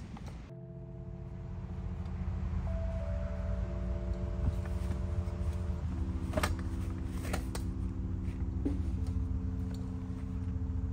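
Background music of held, sustained chords that change every few seconds, starting about half a second in, with a few sharp clicks near the middle.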